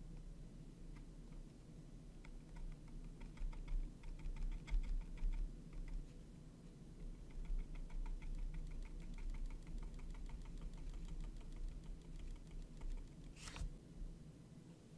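Small paintbrush dabbing and stroking paint onto a tiny textured canvas: quick runs of light ticks and scratches, with one louder short sound near the end.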